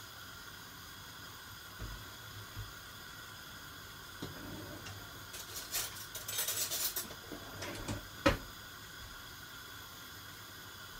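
Dishes and metal utensils clinking and clattering for a second or two around the middle, followed by one sharp knock, over a low steady hiss.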